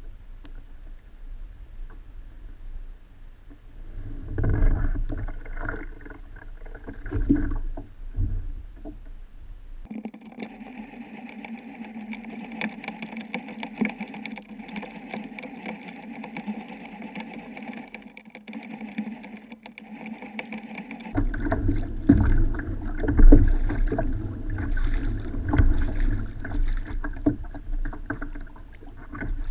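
Choppy water slapping and sloshing against a kayak, with wind on the microphone in uneven gusts. About ten seconds in, the low rumble drops away and a thinner, steady hiss takes over for about ten seconds, then the gusty rumble and slaps return, louder.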